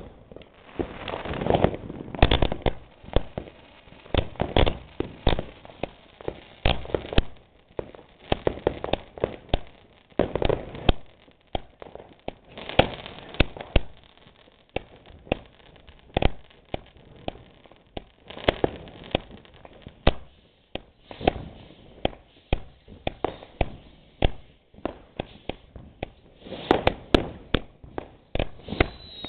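Fireworks and firecrackers going off all around: an unbroken, irregular run of sharp bangs and cracks, a few close and loud, many more fainter and farther off.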